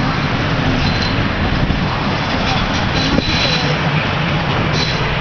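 Breda tram passing directly beneath, a steady rumble of wheels on the rails mixed with nearby road traffic, with a sharp click about three seconds in.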